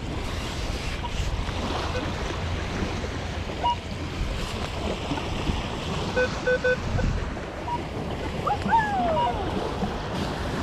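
Surf and wind buffeting the microphone, with short steady-pitched beeps from a Minelab Equinox metal detector sounding over a target; a quick run of three beeps comes about six seconds in.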